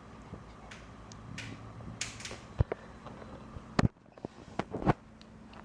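A few sharp knocks and taps at irregular moments, with a couple of short rustling hisses.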